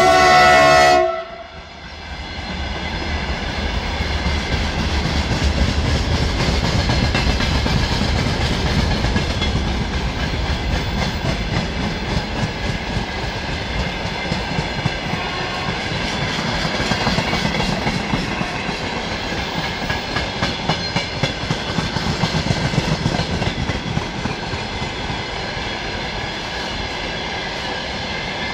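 The horn of a BKG1 electric locomotive ends a long blast, cutting off about a second in. Then a long freight train of tank wagons rolls past at speed, its wheels clattering over the rail joints above a steady rumble.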